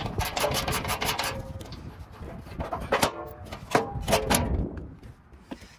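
Hand socket ratchet clicking in two quick runs as it turns bolts on a mini excavator's body panel.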